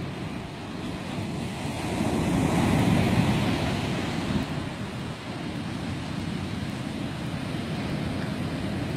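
Ocean surf breaking and washing up a sandy beach, one wave swelling to its loudest about two to three seconds in and then easing off, with wind rumbling on the microphone.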